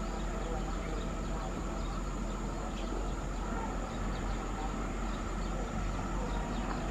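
Truck and crawler tractor diesel engines running steadily at low revs. A thin, steady high insect drone runs through it.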